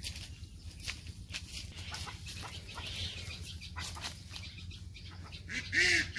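Birds calling: a scatter of short sharp calls, then a few loud calls that rise and fall in pitch near the end.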